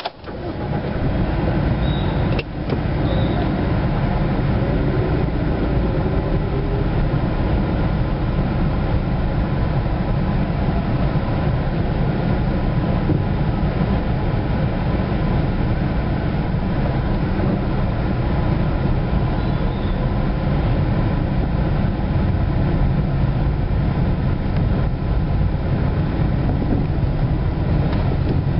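Car driving heard from inside the cabin: a steady rumble of engine and tyres on the road that swells up in the first second, with one short knock about two seconds in.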